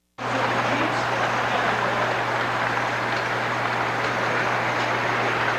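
O-scale model passenger train rolling along the layout track: a steady rumble of wheels on rail with a low steady hum underneath.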